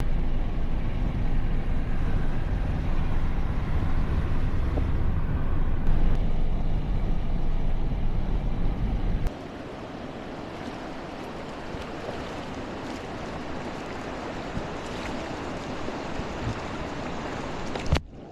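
Rushing river water on a GoPro's microphone: a loud steady rush with heavy low rumble, dropping suddenly about nine seconds in to a quieter, even water sound with faint clicks and splashes.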